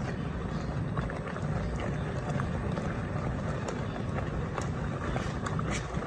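Custard cooking in a pot on a gas flame while it is stirred with a spoon: a steady low rumble with scattered small clicks and pops of the spoon and the thick bubbling mixture.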